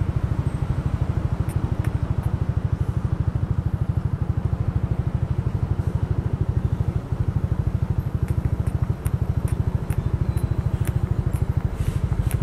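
Yamaha NMAX 155 scooter's single-cylinder engine idling at a standstill, a steady, even pulsing. A few faint clicks near the end.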